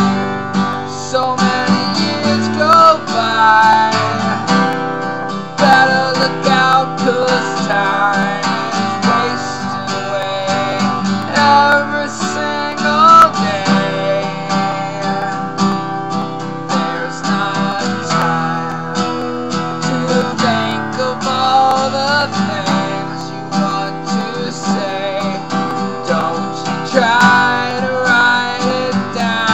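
Acoustic guitar strummed steadily, starting abruptly, with a man singing a melody over it.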